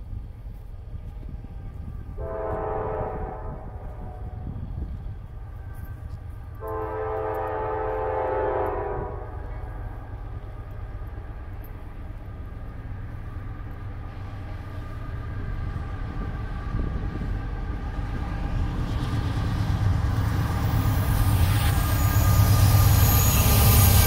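Norfolk Southern diesel locomotive horn sounding two long blasts from the approaching intermodal train, over a low engine rumble. The rumble and wheel noise then build steadily as the locomotives come up and pass.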